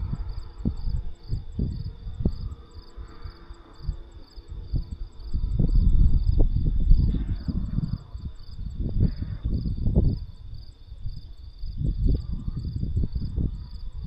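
Crickets chirping steadily, two to three chirps a second, under gusts of wind rumbling on the microphone. The wind is the loudest sound and is strongest about six to eight seconds in.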